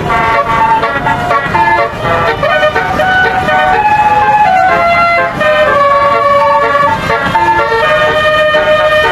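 Bus's 'telolet basuri' melodic horn playing a tune: a run of loud held notes stepping up and down in pitch, some notes held about a second.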